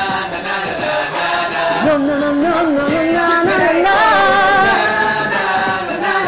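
Group of young men singing a "na na na" chorus together, several voices at once, with long held notes that waver in pitch about halfway through.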